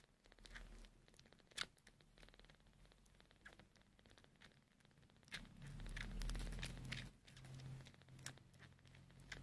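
Newborn sphynx kitten suckling on a bottle nipple: faint scattered wet clicks and smacks. A low rumble swells for a second or two past the middle.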